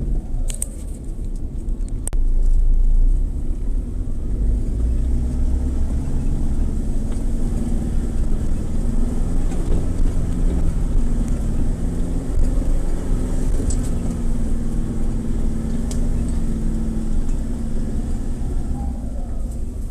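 4x4 off-road vehicle's engine running as it drives, a steady low drone with a few sharp knocks and rattles.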